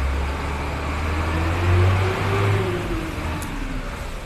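A motor vehicle's engine running over a steady low hum, its pitch rising and then falling back, loudest about two seconds in.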